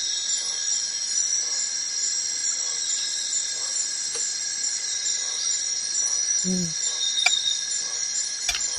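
Steady high-pitched chorus of tropical forest insects, with a few light clinks of a utensil against a bowl near the end.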